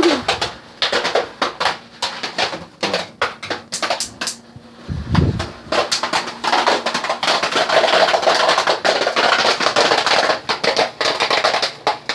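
Jiffy Pop popcorn kernels popping rapidly in the stovetop foil pan: dense, irregular cracks over a steady sizzling hiss, with a short low sound about five seconds in.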